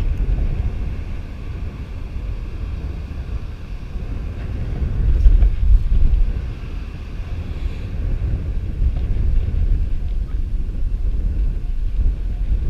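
Wind buffeting the microphone: a steady low rumble that gusts louder about five to six seconds in.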